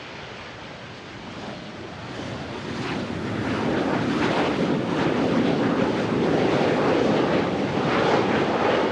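Jet engine roar from a Gulfstream G650ER's twin Rolls-Royce BR725 turbofans. It is a rushing noise that builds over the first few seconds and then stays loud, mixed with wind on the microphone.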